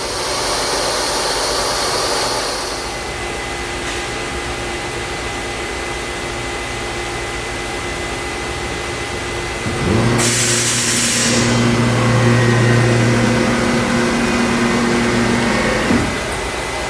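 Multicam 3000 Series CNC router running, its motors humming with steady tones. About ten seconds in, a louder motor comes on with a short burst of hissing air and runs steadily until about a second before the end, when it stops.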